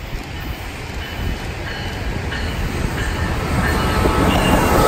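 A train approaching on the track, its rumble growing steadily louder.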